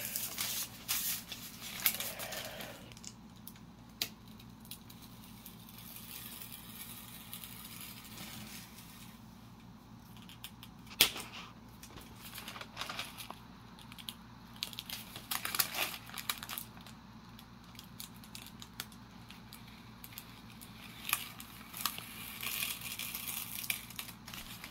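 Hobby knife cutting thin balsa wing parts loose from the kit sheet: soft scratching and rustling of the light wood as it is handled, with scattered small clicks and snaps, one sharper about 11 seconds in. A steady low hum sits underneath.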